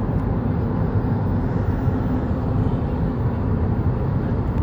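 Steady road and engine noise of a car driving along a highway.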